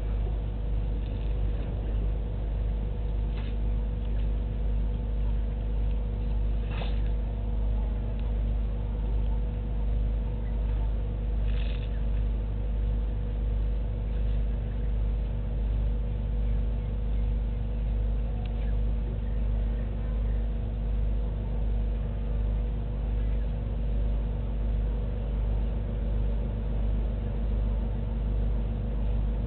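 Steady low mechanical hum with a constant drone, like an engine or machine running, holding level throughout. A few faint short chirps break in about a third of the way through.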